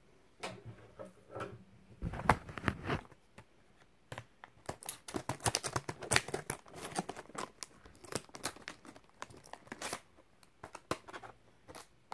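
Stiff clear plastic blister packaging of a die-cast car crinkling and crackling as it is handled and opened, a few rustles at first, then a dense run of sharp crackles from about four seconds in.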